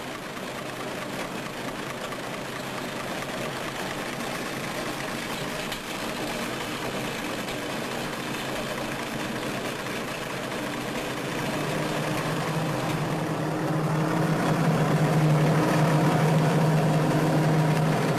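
An engine running steadily and getting louder, with a strong steady low hum coming in about twelve seconds in.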